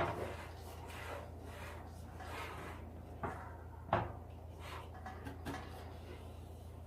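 Objects being handled: a few sharp knocks, the loudest at the start and about four seconds in, with rubbing and scraping between them, over a steady low hum.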